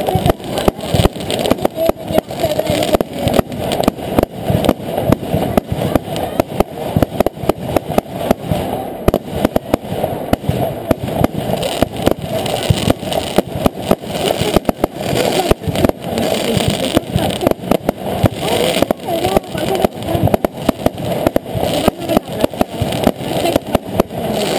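Fireworks going off in quick succession, sharp bangs several times a second, over the chatter of a crowd.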